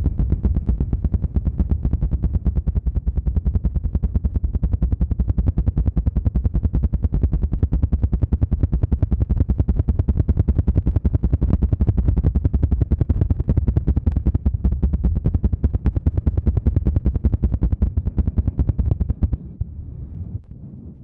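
ASMR "helicopter" trigger: a rapid, even run of low fluttering thumps right on the microphone, like a rotor's chop, that stops shortly before the end.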